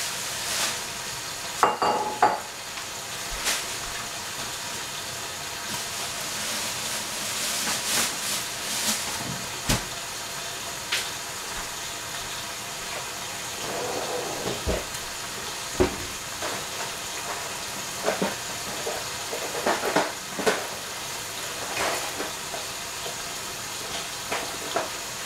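A covered stainless steel pot simmering on a lit gas burner, giving a steady hiss. Scattered short clinks and knocks of dishes and utensils sound throughout.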